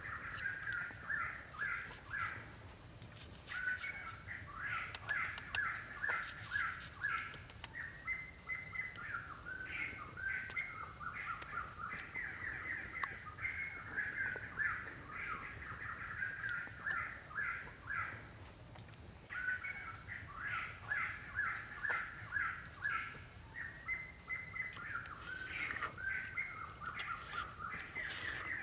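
Forest ambience: a steady high-pitched insect drone, over which birds give repeated rapid, stuttering calls in phrases of a few seconds. A few sharp clicks come near the end.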